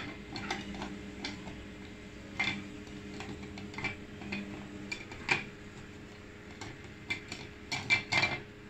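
Irregular plastic clicks and knocks of a small electric chopper's lid being twisted and pressed onto its bowl, with a cluster of sharper clicks near the end. The lid will not lock until its small tab lines up with its slot.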